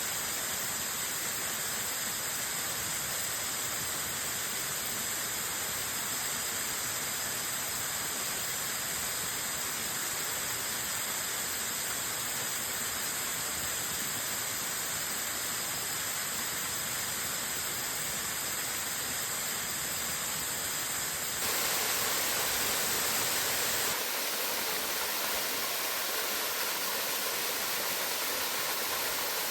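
Waterfall: a steady rush of falling water. Its tone changes abruptly twice near the end, first brighter and a little louder, then thinner in the low end.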